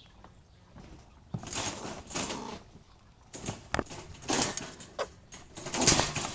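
A squirrel scrambling inside a wire-mesh live trap, rattling the cage in several noisy bursts after a quiet first second, loudest near the end.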